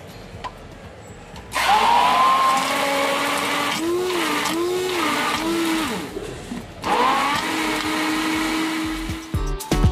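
Electric hand (immersion) blender running in a steel pot of creamy lassi mixture: it starts about one and a half seconds in with a rising whine, its pitch wavering as it churns, cuts out briefly near seven seconds and starts again with another rising whine.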